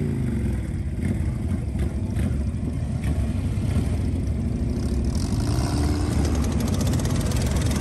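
Engine of a custom-built tracked mini tank running as the vehicle crawls along, a steady low drone.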